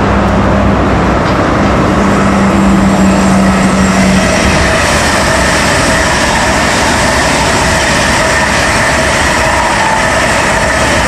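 Two high-speed electric trains, an inspection train and a passenger trainset, passing close by at speed with a loud, steady rushing of wheels and air. A low hum sounds for the first four seconds, then gives way to several higher whining tones.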